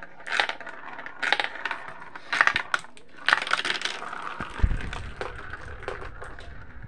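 Marbles rolling and clattering through a plastic marble-run track and funnel, in bunches of rattling clicks about once a second. A single dull thump comes about two-thirds of the way through.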